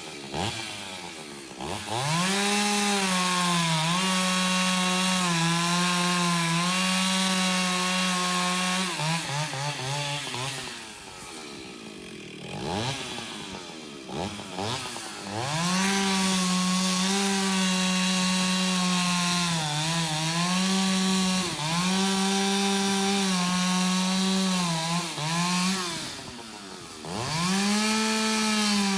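Antique Stihl two-stroke chainsaw revving to full throttle and cutting wood in long steady passes. It drops back to idle for several seconds about ten seconds in, revs up again for a long cut, then falls off briefly near the end before revving once more.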